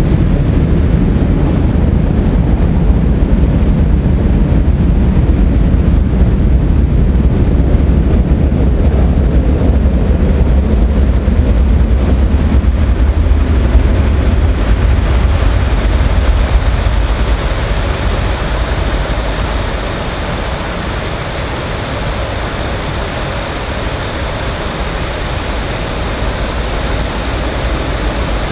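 A heavy low rumble from a passing vehicle that fades away about two-thirds of the way through. From about halfway, a chorus of cicadas buzzes steadily in the high range and grows louder.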